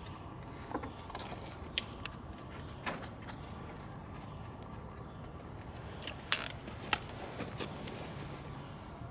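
A few sharp clicks and taps over a steady low background, the loudest a short burst about six seconds in, from tools and hardware being handled.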